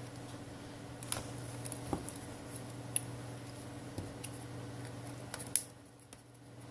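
Scattered light clicks and small snaps of plastic as a pick works around a tablet's back cover, prying its clips loose, the sharpest snap about five and a half seconds in. A steady low hum runs under them.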